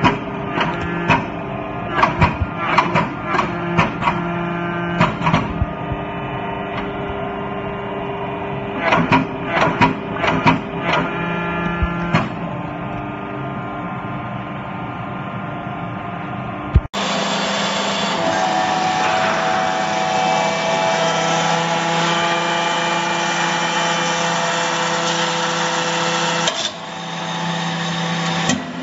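Small hydraulic forging press running: a steady hum from its motor and pump. Through roughly the first twelve seconds it is broken by repeated sharp metallic knocks and clanks; about two-thirds of the way in the sound cuts to a louder, even, steady hum.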